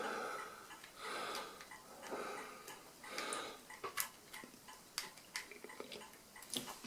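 Small screws being put in loosely by hand on a mechanical calculator's metal frame: scattered sharp metallic clicks and ticks, a few clear ones in the second half.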